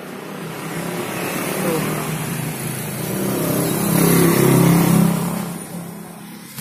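A motor vehicle passing by on the street: its engine and tyre noise swell to a peak about four to five seconds in, then fade away.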